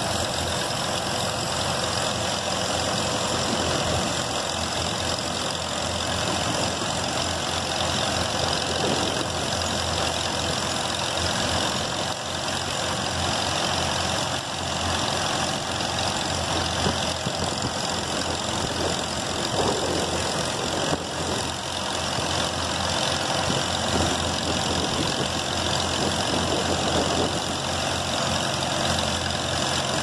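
Farmall 400 tractor's four-cylinder engine idling steadily.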